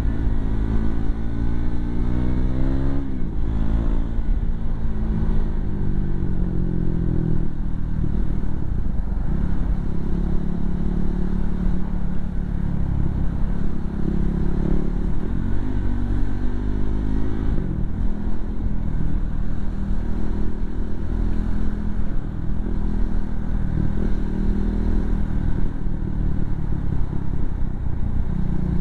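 Motorcycle engine running on the move, its pitch rising and falling several times as the throttle opens and closes, over a steady low rumble of wind on the microphone.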